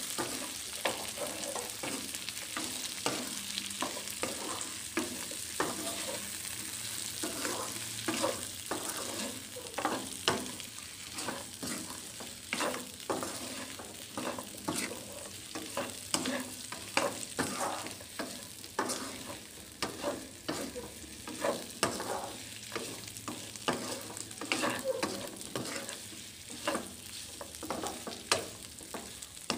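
Fried chicken pieces and shallots sizzling in a non-stick wok as a spatula stirs and tosses them, scraping and knocking against the pan in quick, irregular strokes over a steady hiss.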